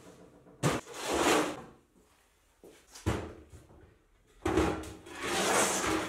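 Steel parts handled on a metal workbench: a sharp clank followed by a scraping slide, a lighter knock about three seconds in, then another clank and scraping slide near the end.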